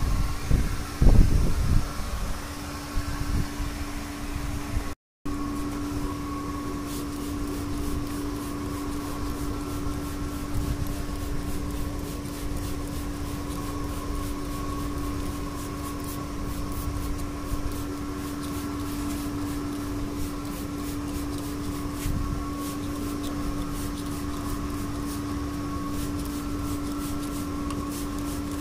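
A few heavy knocks while the rear brake drum is being worked on, then a steady mechanical hum with one constant low tone, with faint clicks over it.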